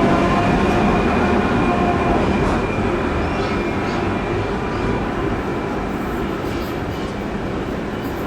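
Electric train running, its motors whining at a steady pitch over the rumble of the cars, the sound slowly fading.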